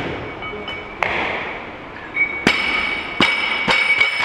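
Loaded Olympic barbell with bumper plates, about 80 kg, dropped from overhead onto the lifting platform, landing with a thud about a second in. Several sharp metallic clanks follow over the next couple of seconds, with a ringing tone from the steel bar and plates.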